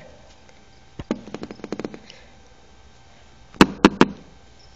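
A quick run of light clicks about a second in, then three sharp taps in quick succession near the end.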